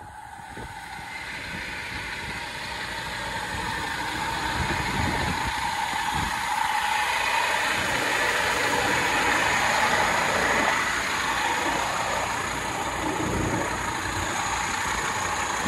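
Scania P230 refuse truck's diesel engine idling steadily, growing louder over the first few seconds.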